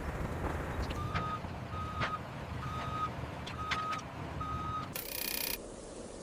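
A construction vehicle's reversing alarm beeps five times, about once a second, over a low engine rumble, followed by a short hiss near the end.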